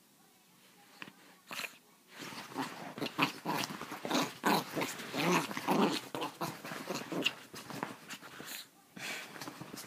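Chihuahua growling in play as it thrashes and rolls on a bed, with the rustle of the bedding; it starts about two seconds in and goes on in irregular spurts.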